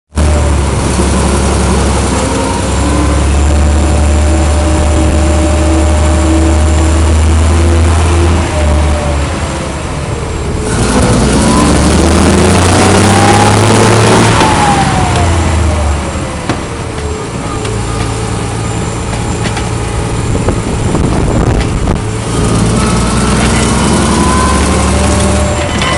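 The petrol engine of a 1937 Leyland FTA3 pump escape fire engine running on the road while it is tested after an overhaul. It holds a steady low note at first, then rises in pitch as it accelerates about ten seconds in, loudest near the top, falls away again, and picks up once more near the end.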